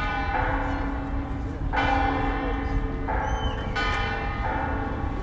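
Church bells ringing: about five strokes at uneven intervals, each ringing on under the next, over a steady low rumble.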